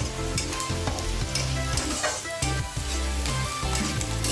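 Chopped onion, garlic, green chilli and spring onion sizzling in hot oil in a karahi while a spatula stirs them, with repeated short scraping knocks of the spatula against the pan.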